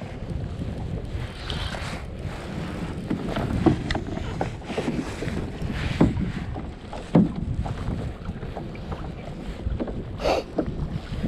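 Wind buffeting the microphone on a kayak on open water, with a few sharp knocks from gear on the kayak, the loudest about six and seven seconds in, and a brief hiss near the end.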